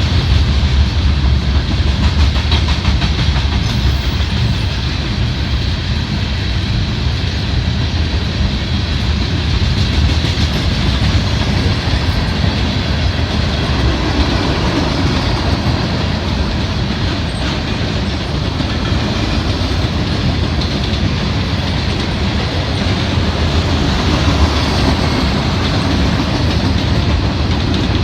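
Freight cars of a mixed freight train rolling past, with a steady rumble of wheels on rail and clickety-clack over the rail joints.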